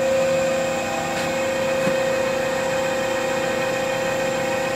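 Ganesh CTL-618EVS precision lathe running at about 1660 RPM on its variable-frequency drive with the carriage power feed engaged: a steady machine whine with one strong pitch, nice and quiet.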